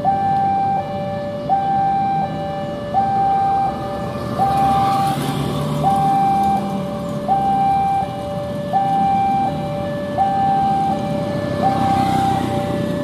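Railway level-crossing warning alarm sounding a steady electronic two-tone signal, a higher and a lower note alternating about every three-quarters of a second, over a low rumble of traffic. A broad rush of noise swells about four to six seconds in.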